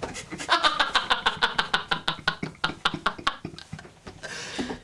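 Two men laughing hard, a fast, breathy run of laughs at about four to five pulses a second that fades out near the end.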